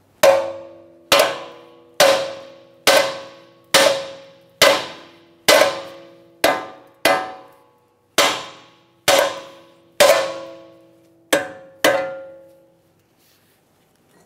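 Hammer striking a steel steering knuckle about fourteen times, roughly once a second, each blow ringing out with a metallic tone. The tapping shocks the outer tie rod end's tapered stud loose from the knuckle.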